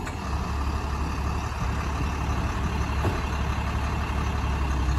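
Flatbed tow truck's engine idling steadily with a low, even drone.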